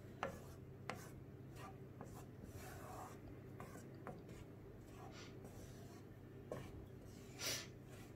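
Wooden spatula stirring thick creamy soup in a nonstick pan, making a few soft scrapes and taps against the pan, with a longer scrape near the end, over a faint steady hum.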